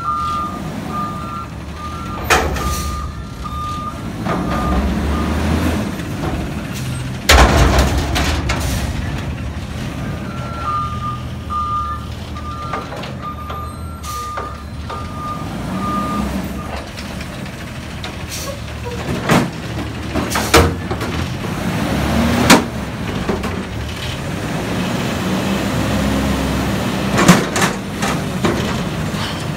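Front-loading garbage truck working dumpsters: the diesel engine revs up and down to drive the hydraulic lift arms, with loud metal bangs from the steel dumpster several times. Reversing beeps sound twice, near the start and again for several seconds in the middle.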